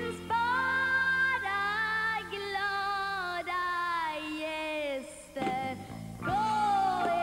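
A young girl singing a show tune over a backing band, holding a long phrase that slowly sinks in pitch, breaking off about five seconds in, then starting a new note that glides down near the end.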